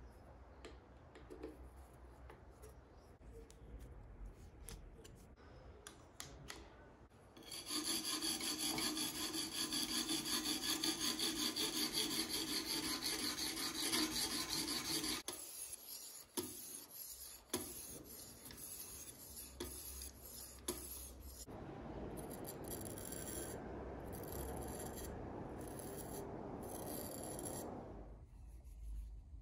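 Sharpening stone on the arm of a TSPROF K03 guided sharpening system scraping back and forth along the edge of a Damascus steel knife blade. Light strokes at first, a louder, denser stretch of scraping in the middle, then lighter strokes and another steady run of scraping near the end.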